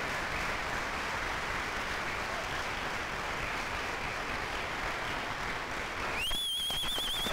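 Audience applauding steadily. About six seconds in, a high whistling tone with a slight waver comes in over the clapping and holds.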